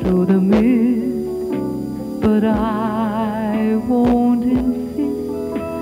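Pop song: a woman sings long held notes with vibrato over instrumental backing with plucked notes.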